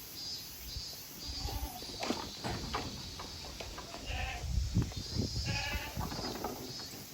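Goats bleating, with three short calls at intervals and a clatter of knocks and thumps in between.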